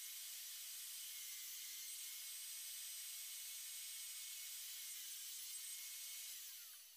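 Table saw motor and blade running at a steady speed with a high whine, then winding down near the end as the motor slows.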